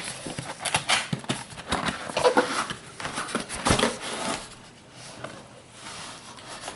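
A cardboard box lid being worked off the box by hand: a quick run of irregular cardboard scrapes, taps and knocks, going quieter after about four and a half seconds.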